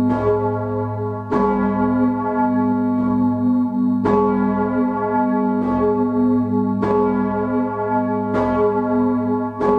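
Large swinging bronze church bell, the 4,100 kg, 1.95 m bourdon bell tuned to G sharp, recorded close up in its bell chamber. The clapper strikes about every one and a half seconds, about eight times, each stroke renewing a long ringing tone over a continuous deep hum.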